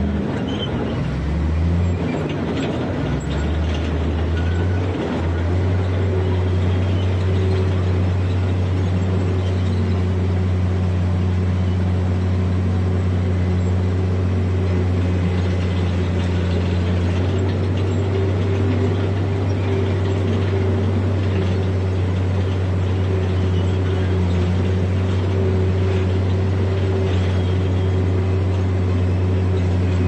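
Heavy earthmoving machine's diesel engine running. Its pitch shifts up and down over the first five seconds or so, then it runs steadily.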